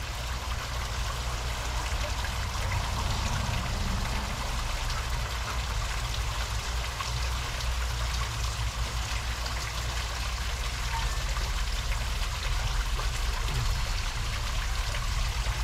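Steady rushing noise like running water, with a low hum underneath.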